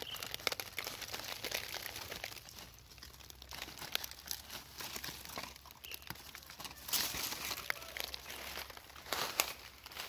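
Dry fallen leaves rustling and crackling underfoot and under hand as they are disturbed, with a couple of louder crunches in the second half.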